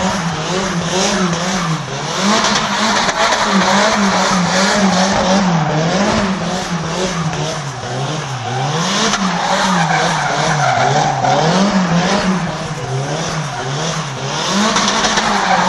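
Nissan Silvia drift car held in a continuous drift around a barrel: the engine revs rise and fall every second or so as the throttle is worked, over steady tyre screech.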